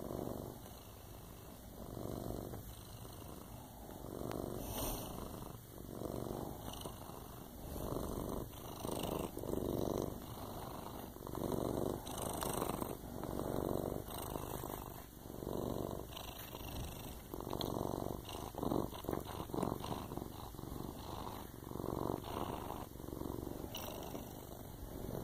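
Long-haired black cat purring close to the microphone, a steady low rumble that swells and eases with each breath, about every one and a half seconds.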